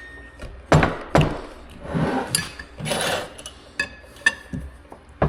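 Hand tools working on a seized drive shaft and bearing puller: two heavy metal knocks about a second in, then scraping, then lighter metallic clinks that ring briefly.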